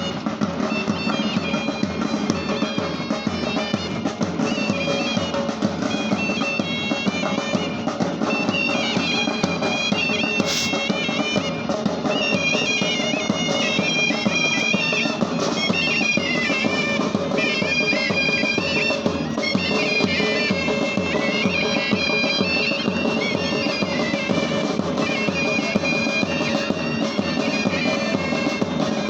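Bagpipes playing a march tune over their steady drone, as a parade pipe band.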